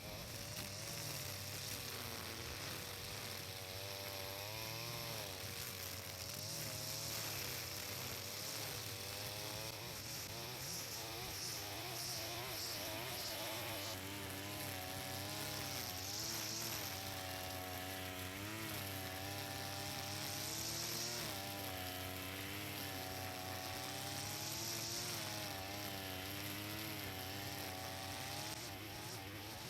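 Brush cutter running while cutting grass, its motor pitch wavering up and down repeatedly.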